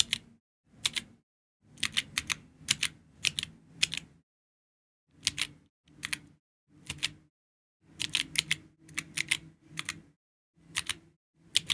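Georgi stenographic keyboard being typed in steno chords: short clusters of key clicks, each a chord pressed together and released, with irregular pauses between strokes.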